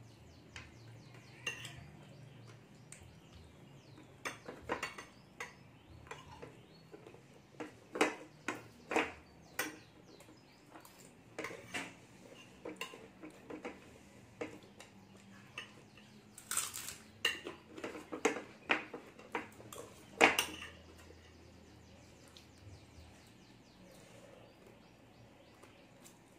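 A metal spoon clinking and scraping against a plate as food is scooped up. The clinks come irregularly, grow busier from about four seconds in, and include a longer scrape about two-thirds of the way through. The sharpest clink comes at about twenty seconds, and the clinking stops shortly after.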